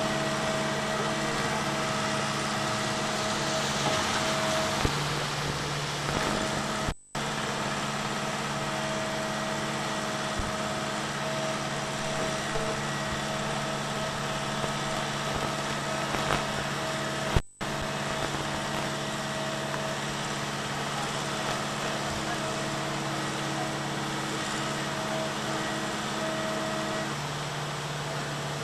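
A wheeled excavator's diesel engine idling steadily over the continuous rush of a river in flood. The whole sound cuts out for an instant twice.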